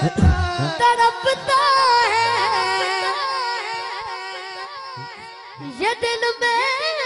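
A boy singing a naat unaccompanied into a microphone: long held, ornamented notes with a wavering pitch. His voice fades to its softest about five seconds in, then comes back loud near six seconds.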